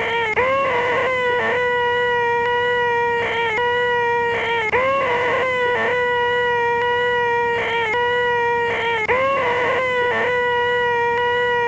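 A man's voice making the sustained, high, nasal 'eeeeh' whine known as the most annoying sound in the world, held on one steady pitch. It breaks briefly with a dip in pitch about every four seconds as the sound repeats.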